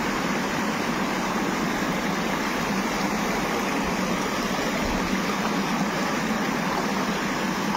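Water spilling over a low concrete weir into a shallow channel, a steady, even rush.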